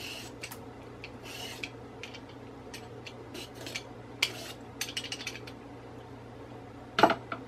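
Vegetable peeler scraping the skin off a cucumber in short, irregular strokes, then a sharp knock about seven seconds in, the loudest sound.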